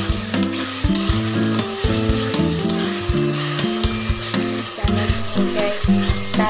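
Chicken curry sizzling in oil in a metal wok while a spatula stirs it, with frequent sharp clicks and scrapes of the spatula against the pan. A backing tune plays under it.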